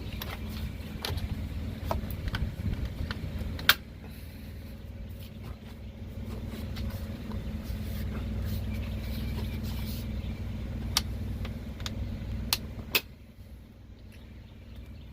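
A vehicle engine idling with a steady low rumble, with several sharp clicks and knocks over it. The rumble drops away near the end.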